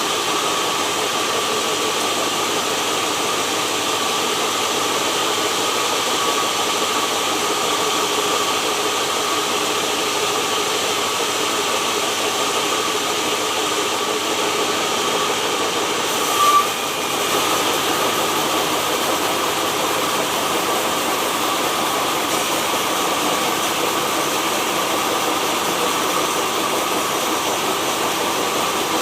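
Sawmill machinery running steadily, an even mechanical noise with a constant whine, with one brief louder spike about sixteen seconds in.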